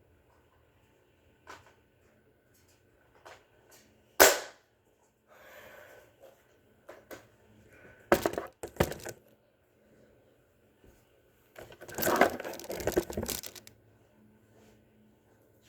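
A spring-powered Nerf blaster fires with one sharp, loud crack about four seconds in. Plastic clattering follows around eight to nine seconds, and a longer stretch of rattling and knocking comes around twelve to thirteen seconds.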